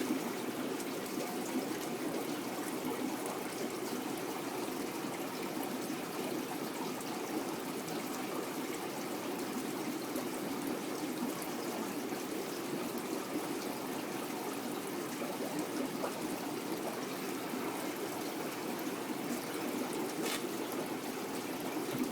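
Steady trickle of running water in a large aquarium, an even flowing sound with a few faint ticks and splashes.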